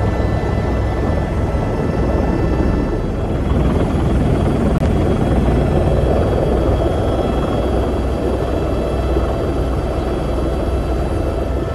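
Turbine helicopter heard from inside its cabin as it taxis: a steady engine and rotor drone with high whining tones on top. Midway the whine fades for a few seconds under a swelling rush of noise, then comes back near the end.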